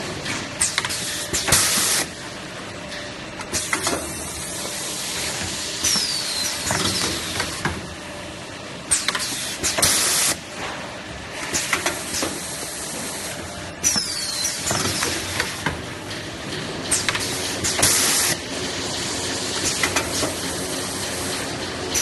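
Semi-automatic roll-packing machine cycling, with mechanical clatter throughout. A loud burst of air hiss comes about every eight seconds, and a short, high, falling squeal falls between the bursts.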